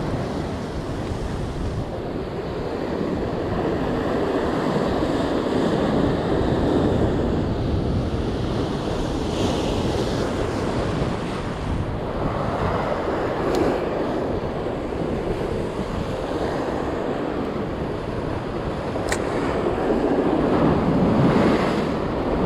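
Sea waves surging and breaking against a rocky shore, with wind buffeting the microphone; the surf swells and eases every few seconds.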